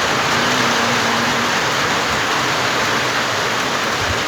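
Heavy rain pouring down steadily, a dense, even hiss of downpour on surfaces.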